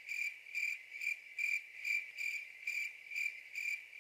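Crickets chirping, one high chirp repeating evenly about twice a second: the stock crickets sound effect for an awkward silence.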